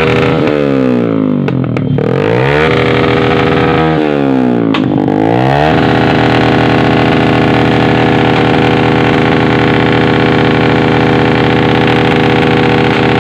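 Suzuki Smash 115's small single-cylinder four-stroke engine, through an aftermarket M4 muffler, is revved up and down several times with a couple of sharp backfire pops. After about six seconds it is held at a steady high pitch. The vacuum hose has been removed to make it backfire.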